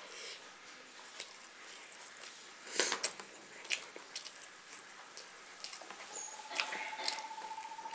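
Close-up eating sounds: chewing with wet mouth clicks and smacks, a few louder ones around three seconds in. A faint steady high tone comes in about six seconds in and holds.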